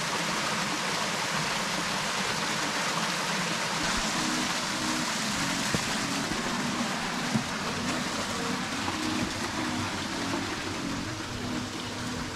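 Creek water rushing steadily, an even hiss-like wash without pauses.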